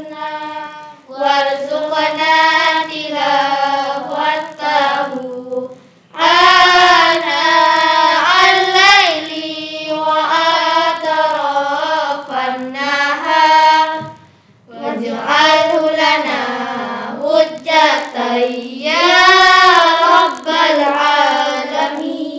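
Girls' melodic Qur'an recitation in tartil style: long chanted phrases of sliding, held notes, broken by short breaths about a second in, about six seconds in and near the middle.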